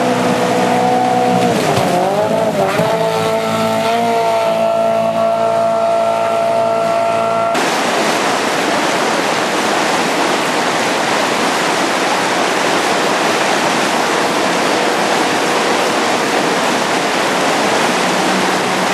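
Power dinghy outboard motor running hard, its pitch dipping and recovering about two seconds in, then holding steady. About seven seconds in it switches abruptly to a loud, steady rushing noise of engine and spray.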